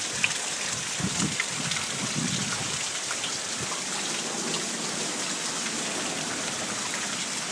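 Steady hard rain from a storm that has dropped hail, falling as an even hiss with many scattered sharp ticks of drops striking hard surfaces. A few dull low thuds come between about one and two and a half seconds in.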